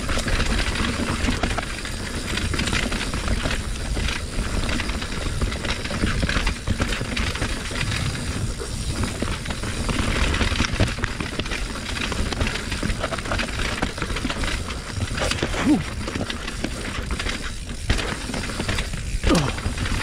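Steel hardtail mountain bike (2020 Norco Torrent HT S2) clattering and rattling continuously as it is ridden fast down a rough, wet, rocky trail, with many small knocks and tyre noise on dirt and rock.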